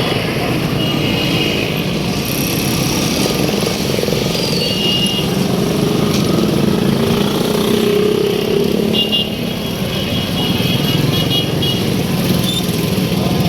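Busy city street traffic: motorcycles and cars running past in a continuous stream, with short high horn beeps several times, clustered around ten seconds in.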